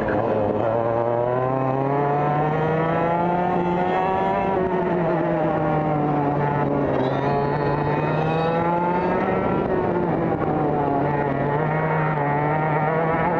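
TKM kart engine heard from the onboard camera, revving hard on the straights and dropping in pitch through the corners. It climbs for the first few seconds, eases off, climbs again, dips around the two-thirds mark, then picks up once more near the end.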